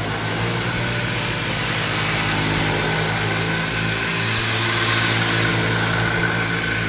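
Several snowmobiles riding by, their engines running steadily.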